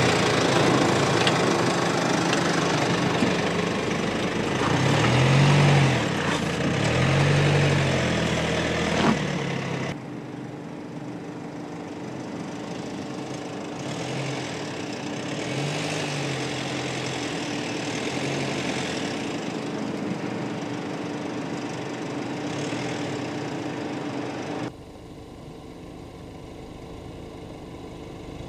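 Mercedes-Benz GLC SUV's engine running at low speed while crawling over sandy off-road humps, the revs rising and falling a few times. The sound drops abruptly twice, about ten seconds in and near the end.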